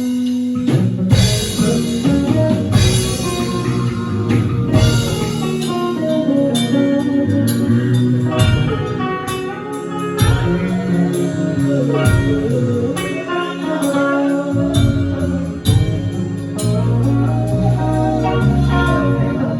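Band playing live at a sound check, with guitar and drum kit, the drums striking regularly under held guitar notes.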